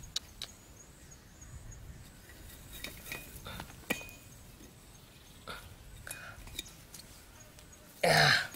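Faint small clicks and taps of hands working string and bamboo sticks on a trap trigger, then near the end one short, loud cough.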